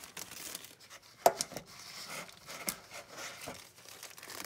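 A plastic bag rustling and crinkling as it is handled and filled with banana, newspaper and soil, with a few sharp knocks, the loudest a little over a second in.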